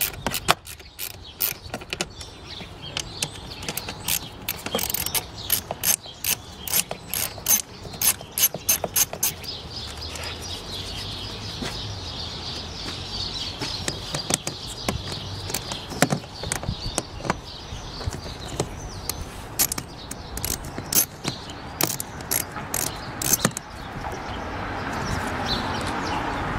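Hand ratchet with an 8 mm socket clicking in quick runs as the bolts are backed out. The clicks come dense for the first several seconds, thin out, then come again in shorter runs later on. A steadier noise builds near the end.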